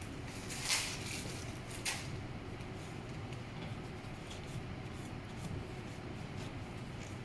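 Cleaning solution squirted from a syringe into a printer's capping-station caps: two short hissy squirts a little over a second apart, then a few light clicks over a steady low hum.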